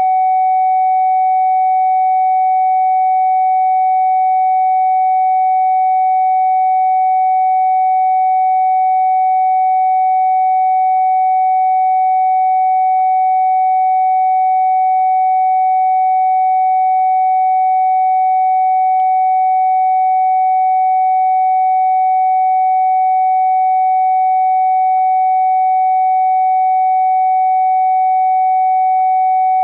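A steady electronic sine-wave test tone for checking a phone speaker for distortion, held at one mid pitch with no change in pitch or loudness.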